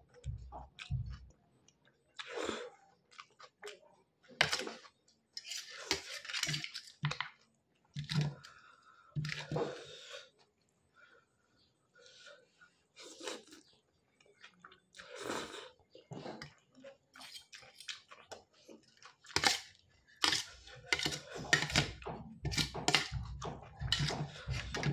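Instant noodles being eaten close to the microphone: slurping and wet chewing in irregular bursts with short pauses, and a fork and spoon clinking and scraping on a steel plate. The sounds come thicker and louder in the last few seconds.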